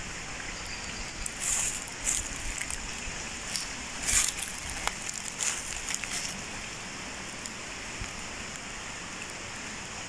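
Shallow forest stream running over rocks, a steady rush of water, with a few brief rustles in the first half.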